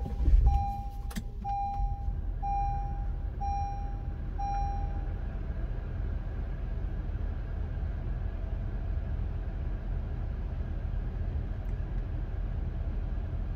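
Car engine starting and settling into a steady idle. Over the first five seconds the car's warning chime beeps about once a second, five times, with a click or two as the engine starts.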